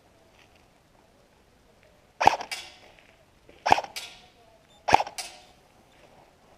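Airsoft gun firing three single shots, a little over a second apart, each sharp snap followed by a fainter second snap.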